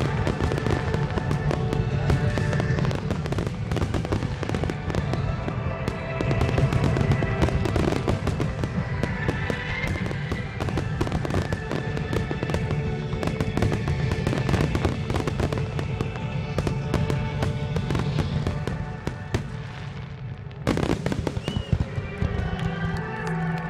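Aerial fireworks shells exploding in a dense barrage of bangs, one after another, over music. The bangs thin out briefly near the end, then start again abruptly.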